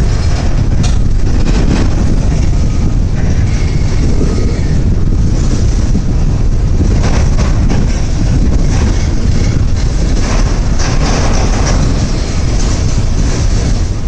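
Freight train cars rolling past close by: a steady, heavy rumble of steel wheels on the rails, with a few sharp clacks as wheelsets cross a rail joint.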